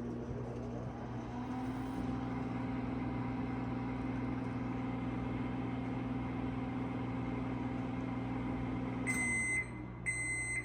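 Whirlpool Gold GH4184XSB-1 over-the-range microwave oven running empty with a steady hum, which firms up slightly about a second in. The hum stops about nine seconds in, followed by two short high beeps marking the end of the cycle.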